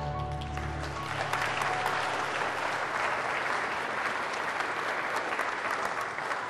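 Audience applauding steadily, the clapping tailing off near the end, with the last of a music cue dying away about a second in.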